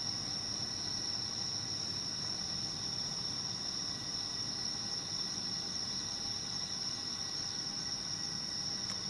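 Crickets chirring in a steady, unbroken high-pitched chorus.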